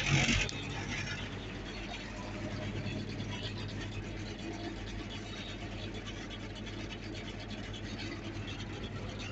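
Engine of a Mertz 3250 floater idling steadily, heard from inside its cab, with a brief scuffing noise right at the start.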